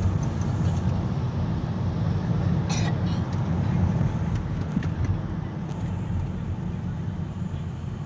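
Steady low rumble of a car driving, heard inside the cabin: engine and road noise. A brief crackle comes about three seconds in.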